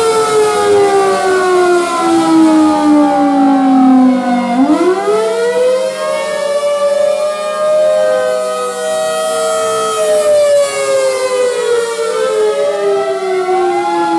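Several outdoor warning sirens, among them a rotating Thunderbolt 1000B, sounding a tornado-warning wail together: their pitches slide slowly down and back up out of step with one another, the main tone bottoming out about four and a half seconds in and falling again near the end. The loudness swells and dips as the rotating siren's horn turns.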